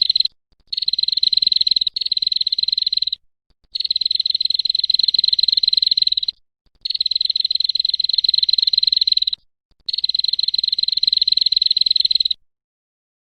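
A high, buzzing animal trill in five bouts of two to three seconds each, separated by short gaps. It stops shortly before the end.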